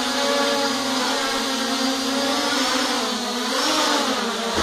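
Small quadcopter's electric motors and propellers buzzing steadily in flight, with the pitch dipping and then rising about three seconds in.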